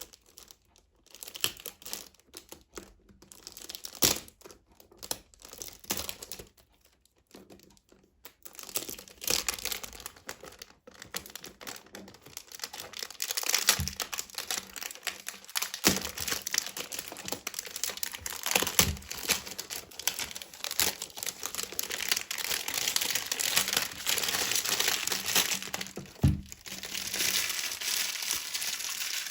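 Perfume box packaging being unwrapped by hand: a few scattered handling clicks and rustles at first, then from about eight seconds in, nearly continuous crinkling and tearing of the wrapping.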